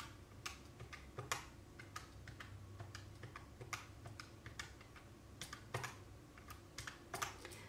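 Keys of a plastic desktop calculator pressed one after another with a fingertip: a run of faint, irregular clicks as a column of figures is added up.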